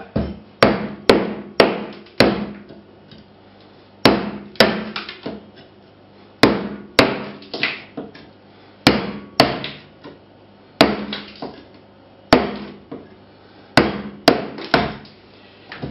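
Hammer blows on an old chisel, chipping hardened tile adhesive off the floor base under a removed tile. The sharp strikes come in groups of two or three, about two a second, with short pauses between the groups.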